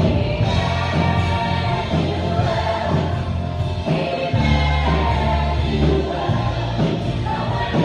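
A worship song: a woman sings into a microphone over keyboard accompaniment, with sustained low bass notes that change every second or two.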